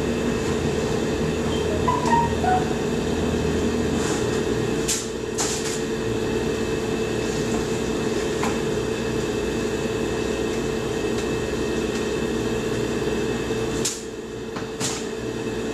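Steady hum of a refrigerator running with its door open, holding one mid-pitched tone. A plastic paddle scrapes and clicks a few times against ice in a bucket of partly frozen beer, scooping out ice to concentrate it.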